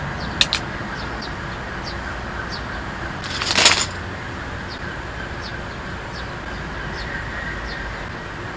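Steady outdoor background hum with small birds chirping briefly now and then. Two light clicks come about half a second in, and a short rustle, the loudest sound, comes about three and a half seconds in, while food is handled at a table.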